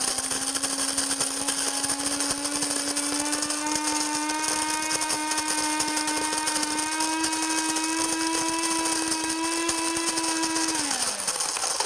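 Cuisinart Supreme Grind burr coffee grinder running as it grinds coffee beans at a medium setting: a steady electric motor hum, its pitch creeping slightly upward, over a constant grinding noise. Near the end the motor shuts off by itself once the set amount is ground, falling in pitch as it winds down.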